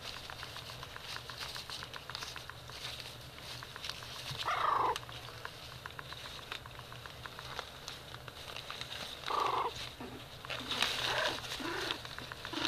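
Four-week-old Tibetan spaniel puppies whimpering: a short squeaky whine about four seconds in, another about halfway, then a cluster of small whines near the end. Steady soft clicking and shuffling from the puppies moving runs underneath.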